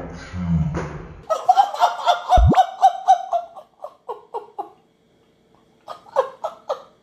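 Laughter: a long run of rapid 'ha-ha' pulses for a few seconds, then, after a short pause, a second, shorter burst near the end. A brief downward-sliding tone cuts in about two and a half seconds in.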